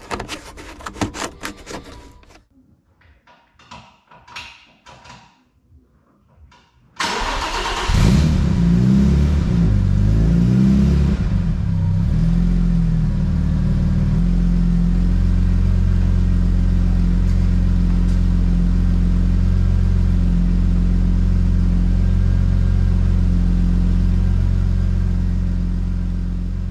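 The rebuilt 2.8-litre V6 of an Audi A4 B5 being started: scattered clicks and knocks, then about seven seconds in a sudden burst as it cranks and catches. Its pitch wavers for several seconds before it settles to a steady idle, which fades out near the end.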